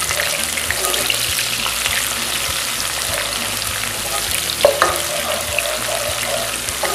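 Sliced onions and cumin seeds sizzling in mustard oil in a wok over medium-low heat, stirred with a wooden spatula, a steady crackling hiss. One sharp knock of the spatula against the pan about two-thirds of the way through.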